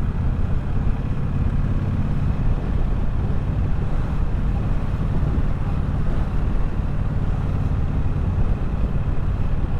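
Triumph Bobber's 1200 cc parallel-twin engine and exhaust running steadily under way, with road and wind noise.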